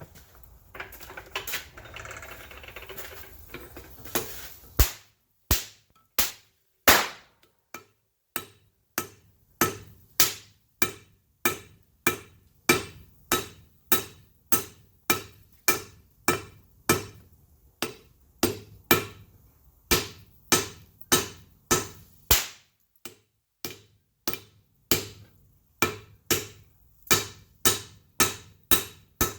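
Hammer blows on red-hot wrought iron over an anvil, forge-welding the stock: a steady run of sharp, ringing strikes about two a second. The strikes begin after a few seconds of hissing noise.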